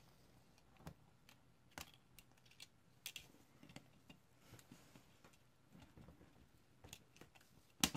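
Faint, scattered small clicks and taps of fingers handling a tablet's circuit board and plastic case frame, with one sharper click near the end.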